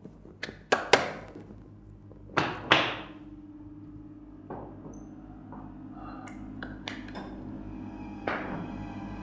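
A few hard knocks, three in the first second and two more about two and a half seconds in, each ringing briefly in the room. Then a low, ominous drone of suspense music sets in and slowly swells.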